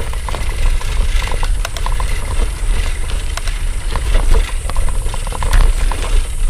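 Wind buffeting the microphone of a moving bicycle rider, a heavy low rumble with hiss, over many small clicks and rattles from the bike on a rough road.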